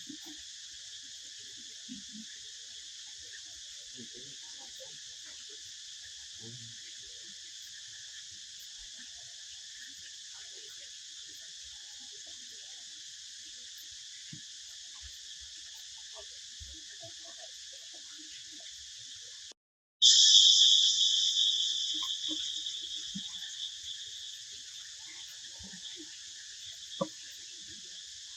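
Steady shrill chorus of insects. About two-thirds of the way through it cuts out for a split second, then returns much louder and fades back down over a few seconds.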